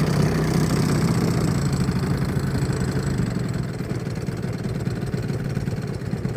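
Engine of a CARF P-51 Mustang model airplane idling after landing: a steady low running note that settles slightly lower and quieter about three and a half seconds in.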